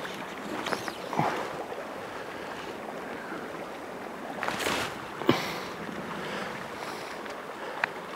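Shallow stream running over a rocky bed, a steady rush of water, with a brief whoosh a little before five seconds in and a couple of short sharp clicks.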